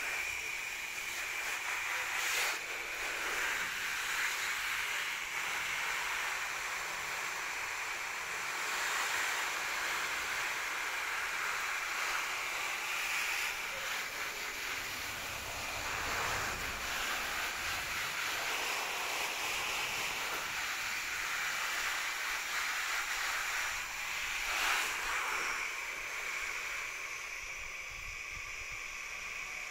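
Garden hose spray nozzle hissing as its shower of water patters onto broad plant leaves. The spray runs steadily, swelling briefly a couple of times.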